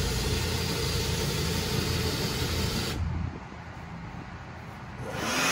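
Cordless drill driving a winch to raise a hanging brooder heater, running steadily and then stopping abruptly about three seconds in. A low hum carries on underneath, and a rushing noise swells up again near the end.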